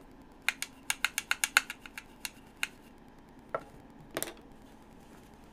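A quick, irregular run of about ten sharp clicks and taps in two seconds, then two more single clicks.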